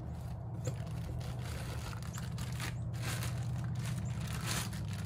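Cardboard and plastic packaging rustling and crinkling in irregular bursts as a part in a clear plastic bag is lifted out of a box, over a steady low hum.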